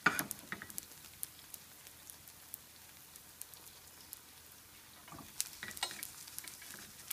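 Beyond burger patties and a green onion pancake sizzling in oil in two frying pans, with scattered crackling pops. A sharp tap comes at the start, and a spatula works under the pancake in the stainless steel pan near the end.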